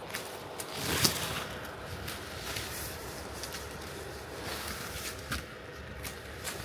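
Pruning shears cutting mandarin orange branches: one sharp snip about a second in and a few lighter clicks later, over the noise of branches and leaves being handled.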